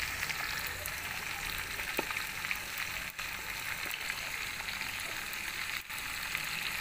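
Fish deep-frying in hot oil in an aluminium karahi: a steady sizzle with fine crackling pops, cut off for an instant about three and six seconds in.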